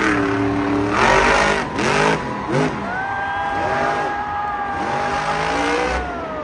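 Monster truck's supercharged V8 revving hard in quick bursts, then held at high revs for a few seconds before its pitch falls away near the end.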